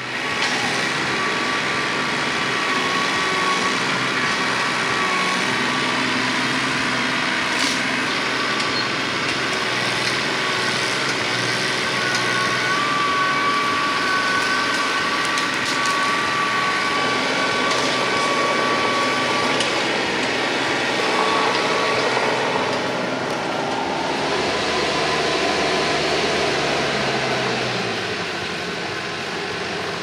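Red TYM compact diesel tractor engine running steadily under load as its front loader grapple lifts and carries heavy log sections, with a high thin whine that comes and goes through the middle.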